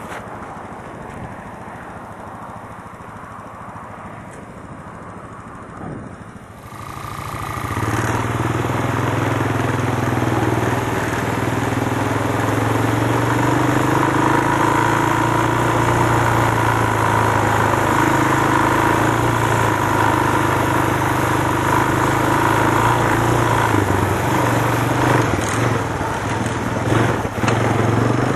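ATV engine running under way along a dirt trail. It is quieter for the first several seconds, then comes up sharply about seven seconds in and runs steadily, with small changes in pitch from the throttle.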